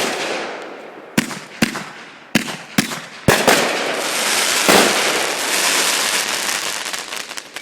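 Fireworks going off: a sharp bang at the start, about six more bangs spaced over the next few seconds, then a dense crackling that thins out near the end.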